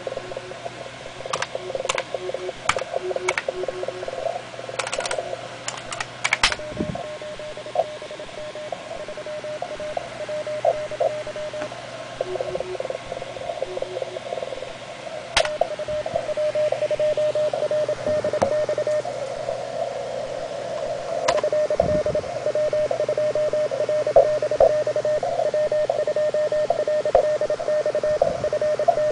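Morse code (CW) on the 20-metre band from an Elecraft K2 transceiver: a single mid-pitched tone keyed on and off in fast dots and dashes over receiver hiss. A handful of sharp clicks sound in the first several seconds.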